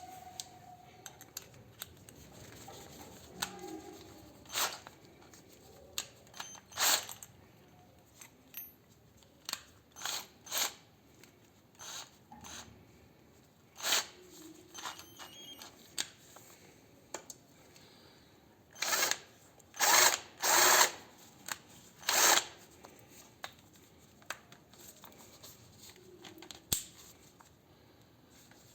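Makita DF331D 12V cordless drill-driver run in short trigger pulls: about a dozen brief spins, each under a second. The loudest ones come about two-thirds of the way through.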